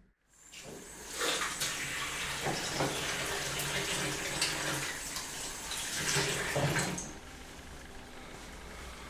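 Water running from a kitchen tap into a sink, with a few knocks in it, starting about a second in and shut off about seven seconds in.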